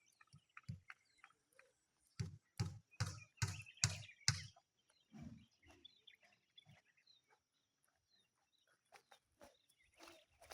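A run of about six short knocks, roughly two or three a second, a couple of seconds in, with faint bird chirps.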